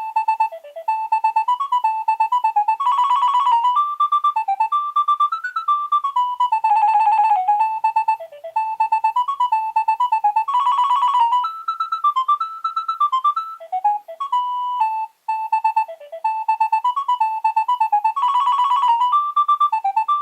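Nokia 3200 mobile phone ringtone playing: a bright electronic melody that starts abruptly, repeats its phrases with fast trilling runs every few seconds, and drops out briefly about three-quarters of the way through.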